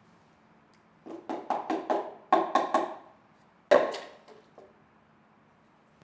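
A quick run of about eight sharp knocks, roughly four a second, then one louder knock and two faint ones.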